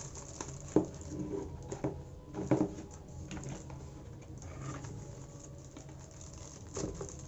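A packaged keyboard being lifted out of its cardboard box: a handful of separate soft knocks and rustles of packaging handling.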